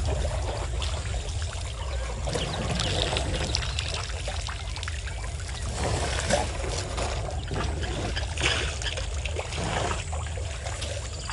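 Water splashing and trickling as African elephants drink and wade in a waterhole, their trunks drawing up and pouring out water in short irregular splashes. A low steady rumble runs underneath.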